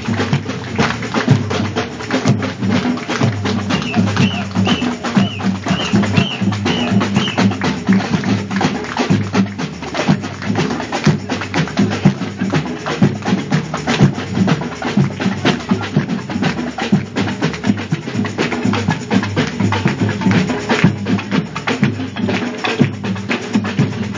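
A group of drummers playing a fast, continuous rhythm on drums, with dense hits and a heavy low boom.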